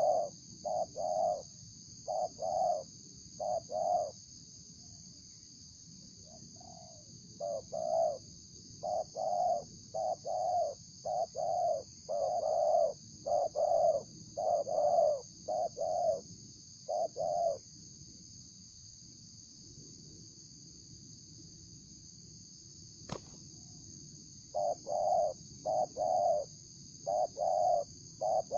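Spotted dove (tekukur) cooing: phrases of short, repeated coos, broken off for several seconds past the middle and taken up again near the end. A single sharp click sounds during the pause.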